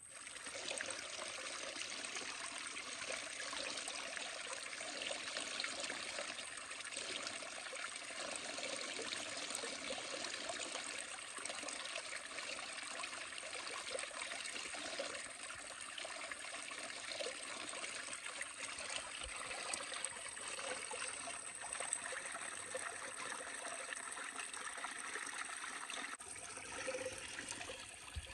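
A small spring trickling and splashing steadily as its water runs down over bedrock.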